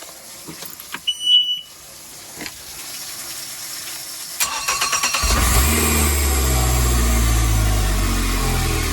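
Boat outboard motor being started: a short high beep, then a brief crank of under a second before it catches and settles into a steady idle.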